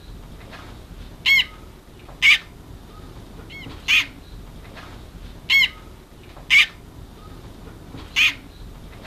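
Hooded grebe chick calling: six short, high, ringing peeps, about one every second or so.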